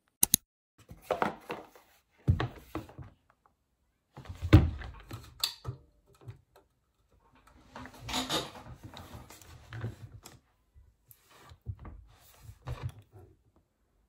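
Handling noises at a desk: a sharp click near the start, then knocks, a few thumps and rustling as a tablet in its folding case and other things on the desk are moved about.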